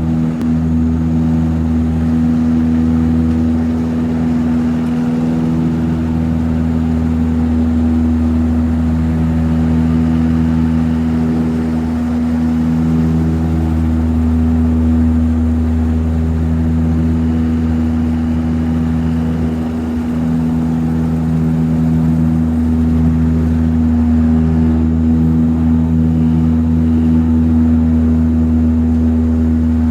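Light plane's piston engine and propeller running steadily, a constant low drone with a stack of even tones that barely changes in pitch.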